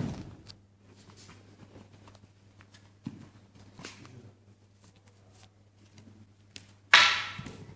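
Bare feet shuffling and stepping on tatami mats in a quiet hall, with faint scattered ticks. Near the end comes a single sudden loud sound that dies away within a second.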